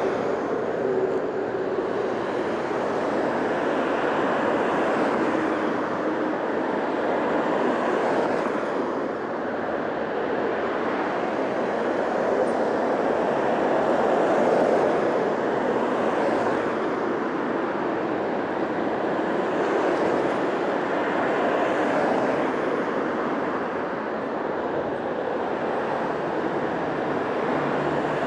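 Steady rushing wind and road noise from riding a bicycle, swelling and easing slowly.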